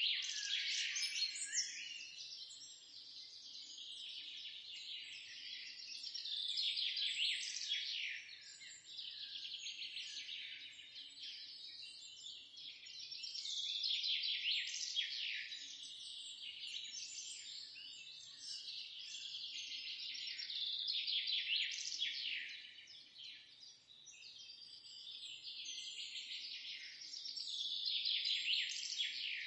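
Songbirds chirping and twittering in a busy chorus of quick, high, down-slurred notes that swells louder and eases off every few seconds.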